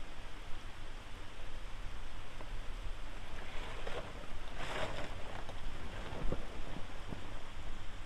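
Nissan Xterra SUV creeping down a rough gravel trail: a low engine rumble with tyres crunching and popping over stones, and a louder rush of crunching gravel about halfway through.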